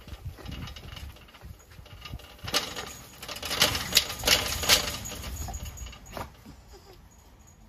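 Metal fence and chain-link mesh rattling and clinking as a black panther paws and pushes at it. There is a burst of sharp metallic clicks from about two and a half to five seconds in and a few more near the end.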